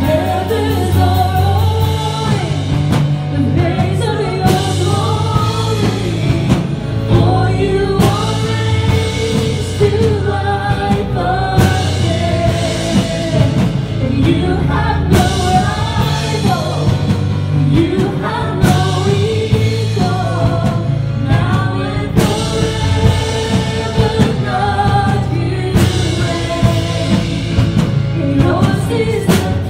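Live worship song: a woman singing the lead melody over a Roland electronic keyboard and a drum kit.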